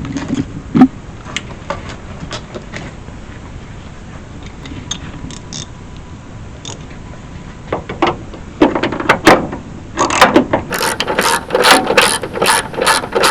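Hand ratchet clicking in quick strokes as it tightens a nut onto a lock washer, which can't be done by hand. It starts about eight seconds in after a few scattered clicks and grows busier near the end.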